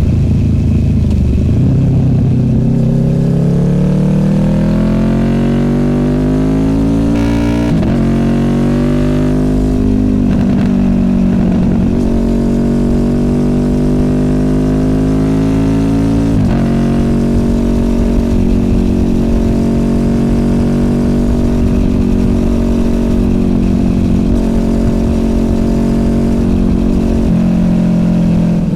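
Honda VFR800F's V4 VTEC engine through an SC Project Conic exhaust, accelerating: the pitch rises for several seconds, breaking at gear changes about 8 and 10 seconds in, then holds steady at a cruise, with another short break about 16 seconds in.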